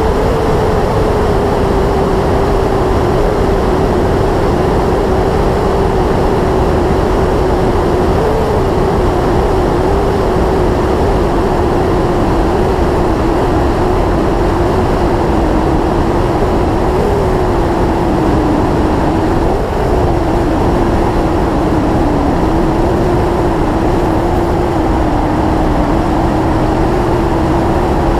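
Yamaha YZF-R6S sport motorcycle's inline-four engine running at a steady cruise, its even note wavering only slightly, over a steady rush of wind noise.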